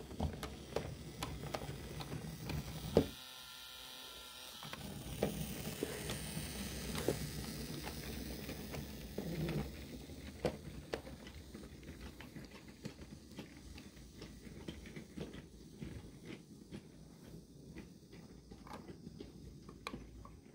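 IKEA Lillabo wooden toy train rolling along wooden track, its wheels clicking irregularly over the track joints under a low rumble. The sound thins out toward the end as the last cars pass.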